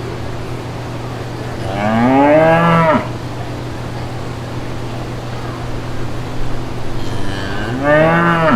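A cow mooing twice, each call rising and then falling in pitch, over a steady low background hum.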